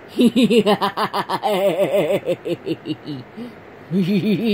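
A woman laughing in quick repeated ha-ha pulses: one long run of laughter, then a second burst near the end.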